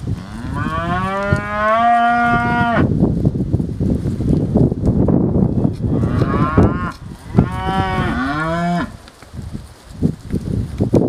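Heifers mooing: one long moo rising in pitch at the start, then a short call and a second long moo about two-thirds of the way through. Between the calls there is a steady scuffle of hooves on dirt as the cattle walk about.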